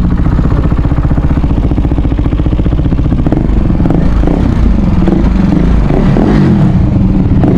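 KTM Duke 390's single-cylinder engine running as the motorcycle is ridden, its note shifting up and down with the throttle in the second half.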